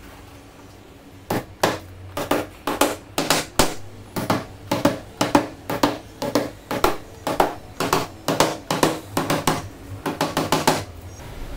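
Hammer driving small nails through a fibreboard panel into the frame beneath: a steady run of sharp strikes, about two to three a second, starting about a second in and stopping near the end.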